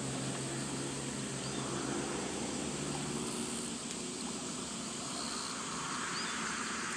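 Summer outdoor ambience: insects buzzing steadily, with a low steady hum that fades out about halfway and a couple of short high bird chirps.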